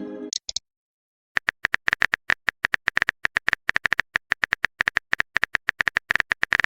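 The tail of a short pitched message tone, then after a brief gap a rapid run of typing clicks, about eight a second: a chat-typing sound effect as a message is typed out.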